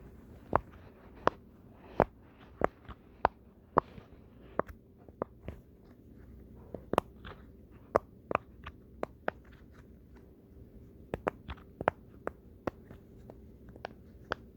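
Silicone pop-it fidget toy having its bubbles pushed through one at a time: a long run of short, sharp pops at uneven spacing, a few a second, with a brief pause about ten seconds in.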